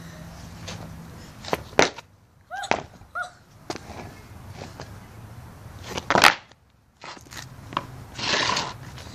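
Small skateboard knocking and slapping on concrete during trick attempts: several sharp clacks in the first few seconds with two short squeaks among them, a louder crash about six seconds in, and a rough scrape near the end.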